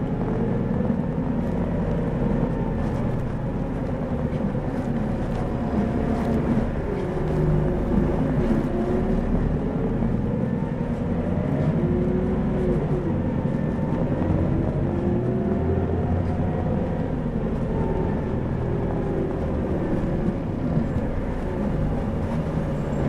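Isuzu Erga Mio (2PG-LV290N3) city bus running on the road, its four-cylinder diesel engine steady underneath. The engine's pitch rises and falls again and again as the bus accelerates and eases off.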